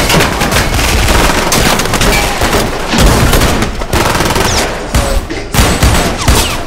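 Rapid automatic gunfire, the shots running together in long sustained bursts with a brief break about five seconds in: dubbed-in action-film gunshot sound effects.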